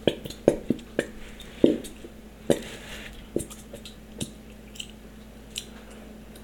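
Plastic glue bottle clicking and knocking as it is squeezed and handled over a plastic mixing bowl to empty the last of the glue. The knocks come every half second or so at first, then thin out to a few faint ticks.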